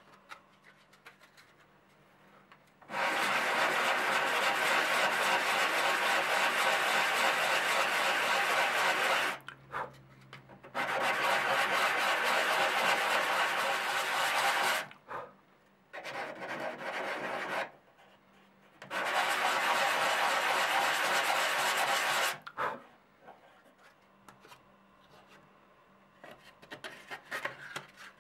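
A wooden button blank being abraded by hand, a steady scraping rub that comes in four spells of a few seconds each with short pauses between.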